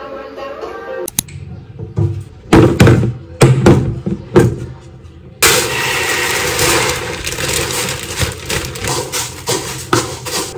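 Several loud thumps, then uncooked rice poured from a plastic bag into a clear plastic storage bin: a steady hissing rush of grains with small rattles, starting about five seconds in and easing off near the end.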